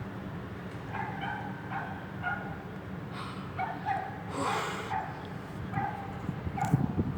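A dog whining and yipping in a string of short, high calls, about two a second, over a steady low rumble, with a brief hiss about midway.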